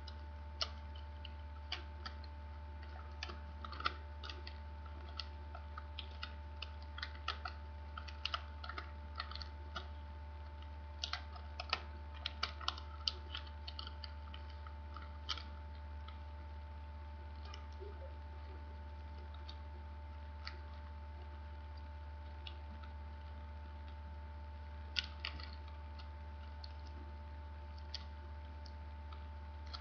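A sheet of origami paper being folded and creased by hand: irregular short, crisp crackles and clicks, busiest in the first half and again in a brief cluster near the end. A steady low electrical hum runs underneath.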